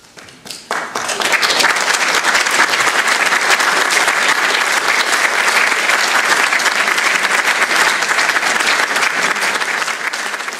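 Audience applauding: a few scattered claps, then steady full applause from about a second in, easing a little near the end.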